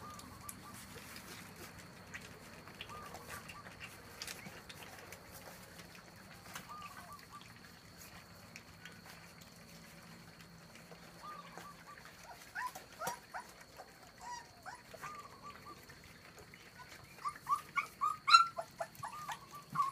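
Young puppies whimpering in short, high squeaks while they crowd round a feeding dish. The squeaks are sparse at first and come thicker and louder over the last several seconds.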